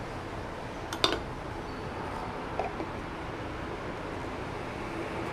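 PVC pipe and fittings handled during cement assembly: one sharp click about a second in and a fainter one later, over a steady low hum.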